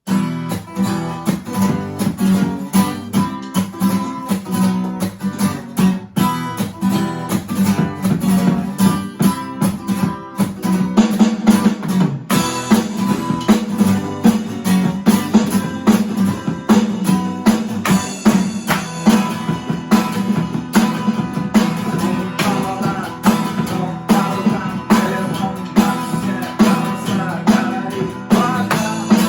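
Guitar strummed in a steady rhythm, playing a song's instrumental intro without singing. From about twelve seconds in the sound grows brighter and fuller.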